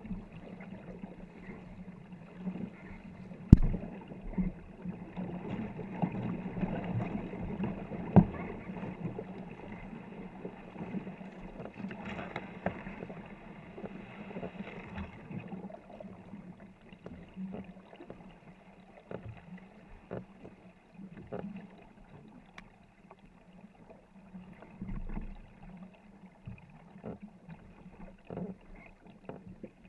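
Paddles of a 24-foot war canoe crew stroking hard through the water, splashing with frequent short knocks of paddles against the wooden canoe. Two sharp knocks stand out, a few seconds in and again about eight seconds in.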